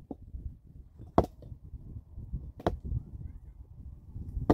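Stones knocking together as rocks are handled and set into a dry-stone wall: three sharp clacks about a second and a half apart, with low scuffling between.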